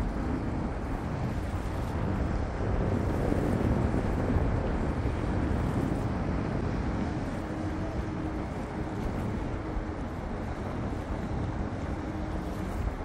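Steady harbourside rumble of passing boats, a harbour ferry and a motor cruiser, running on the water with their wash. A faint steady engine hum joins about halfway through.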